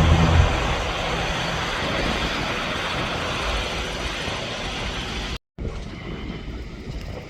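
Aircraft engine noise slowly fading as a plane moves away, with wind buffeting the microphone at the start. It cuts out abruptly about five and a half seconds in and resumes as quieter, duller wind and engine noise.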